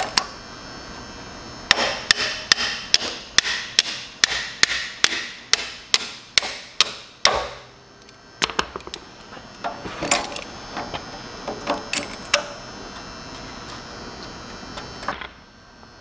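Hammer blows on metal: a steady run of about seventeen strikes at roughly three a second, working the old leaking shaft seal out of a Troy-Bilt tiller's axle housing. After that come scattered lighter metal clinks and knocks.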